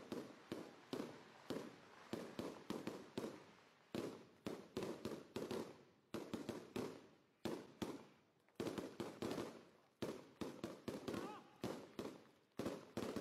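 Celebratory firecrackers going off in a fast, irregular series of sharp bangs, two or three a second, each followed by a short echo.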